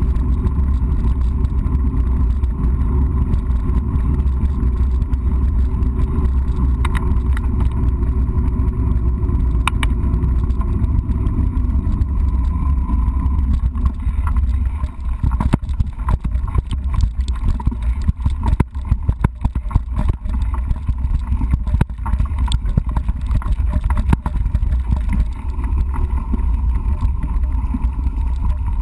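Mountain bike on knobby tyres rolling along, heard through a handlebar-mounted action camera: a steady low rumble of wind and tyre noise on a wooden boardwalk. About halfway through it turns into a rattle of frequent knocks and clatters as the bike rides over rough grass and stones.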